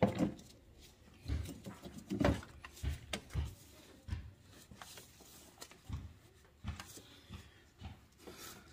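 Belt-drive pulleys of a Chevy Cruze 1.4 turbo engine turned by a gloved hand with the serpentine belt off: a series of short, irregular rubbing and knocking sounds, with no steady whine or grinding. The pulley bearings are being checked for noise, and they sound okay.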